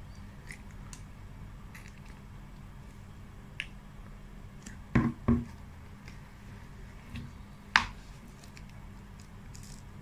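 Eating sounds: a metal spoon clicking against a clear plastic cup of ice cream, with soft mouth clicks. Two loud knocks come about halfway through and a sharp click later, over a steady low hum.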